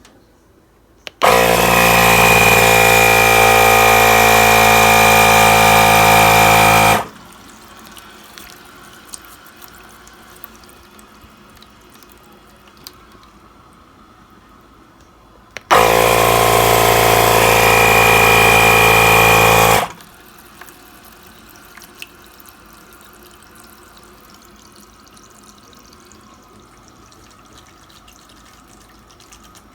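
Freshly serviced tap turned on full twice, water rushing hard with a steady whistling tone through it, first for about six seconds and then for about four, each time shut off abruptly.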